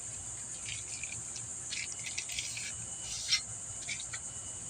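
Plastic packaging being pulled off a new mower steering part, giving short crinkles and rustles now and then, over a steady high chirring of crickets.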